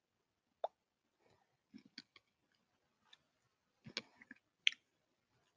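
Faint, scattered clicks and small pops, the loudest about four seconds in.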